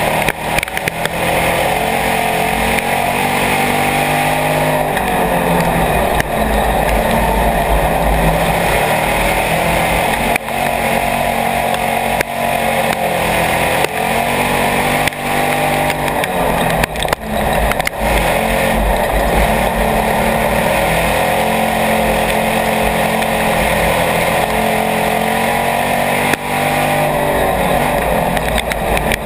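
IMCA Hobby Stock race car's engine, heard from inside the cockpit while racing on a dirt oval, its pitch swelling up and falling back again and again as it accelerates down the straights and backs off for the turns. A few brief knocks cut through it.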